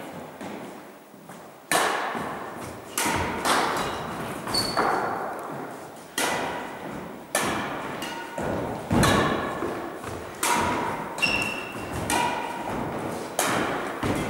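Badminton rackets striking a shuttlecock back and forth in a rally, a sharp crack about every second starting a couple of seconds in, each hit ringing on in the echo of a large gym hall.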